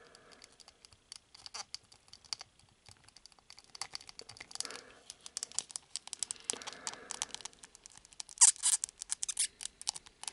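Hard plastic model-kit parts clicking and scraping against each other as they are pressed and worked together by hand to snap a piece into place, with a burst of louder clicks near the end.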